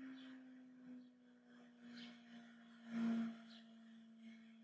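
Quiet room tone under a faint, steady low hum, one low tone with fainter tones above it. A brief soft sound comes about three seconds in.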